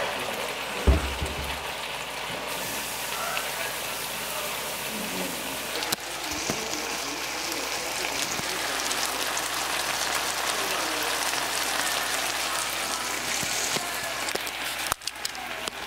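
Pepper steak (beef strips and bell peppers in gravy) simmering and sizzling in a skillet, a steady hiss. A low bump about a second in.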